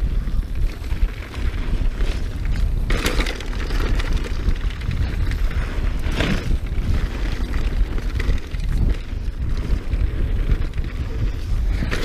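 Mountain biking at speed on a YT Jeffsy trail bike: wind buffeting the microphone in a steady rumble, with tyres running over loose dirt and the bike rattling. Two louder bursts of noise stand out, about three and six seconds in.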